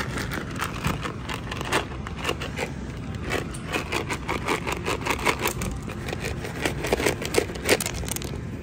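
Dry cat treats rattling in a handheld plastic container: a dense run of quick, irregular clicks.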